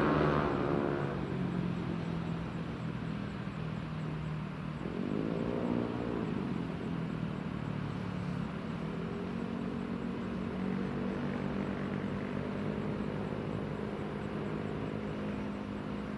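Engine noise from passing vehicles. An engine falls in pitch as it goes by at the start, another revs up and back down about five seconds in, then a steady engine hum carries on.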